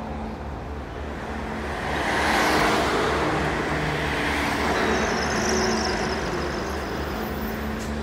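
Road traffic: a van drives past close by. The noise of its tyres and engine swells about two seconds in, is loudest around three seconds, then slowly fades over a steady low traffic hum.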